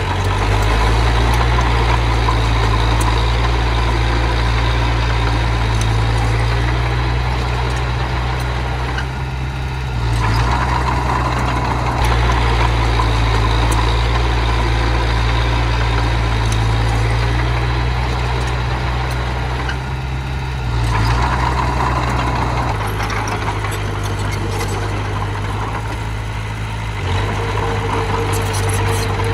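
Engine of a heavy earthmoving machine running steadily with a strong low hum, easing off and picking up again a few times as it works.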